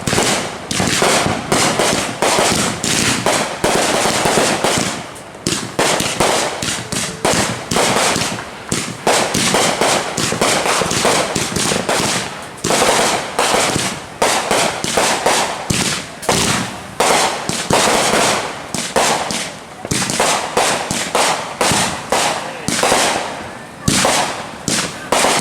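Fireworks going off in a dense, continuous run of sharp crackling bangs, many a second, with brief lulls about five seconds in and again near twenty seconds.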